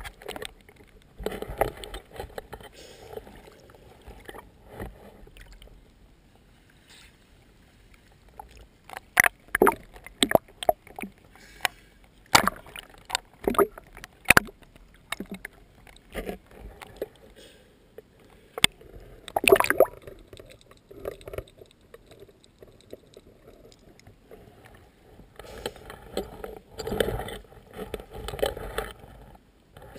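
Water sloshing and lapping, with a series of sharp knocks and clicks in the middle.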